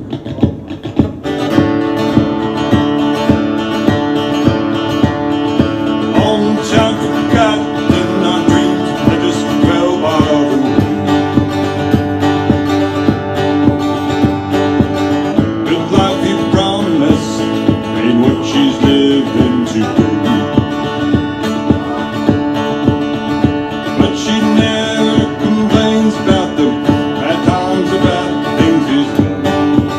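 Country music played live on guitar over a steady beat, with a man's voice singing in places.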